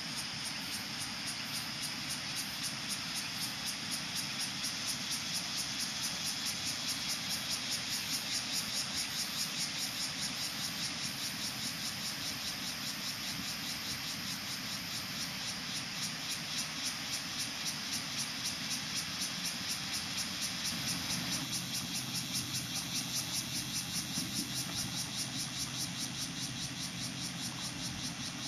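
Loud insect chorus: a dense, buzzing hiss that pulses evenly a few times a second.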